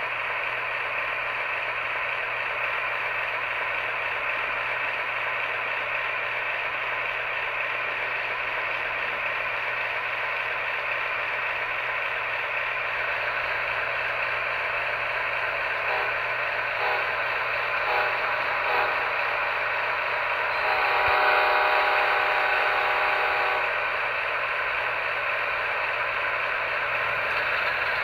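Model train running along its track, a steady mechanical clatter and whir of wheels and motor picked up close by a camera riding on the train. About two-thirds of the way through, a held pitched tone sounds for about two and a half seconds.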